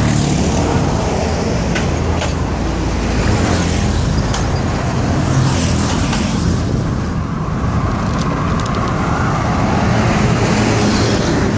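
Steady, loud traffic noise from motor vehicles driving along a multi-lane highway.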